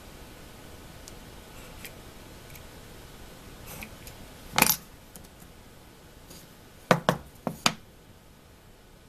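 Hand-tool handling: faint ticks of a utility knife trimming rubber screen-door gasket in a slotted wooden block, a sharp click about halfway, then a quick run of four sharp taps as the knife is laid down on the MDF board, all over a low steady hiss.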